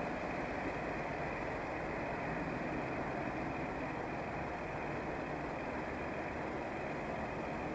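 Steady motorway traffic noise: engines running and a low, even rumble.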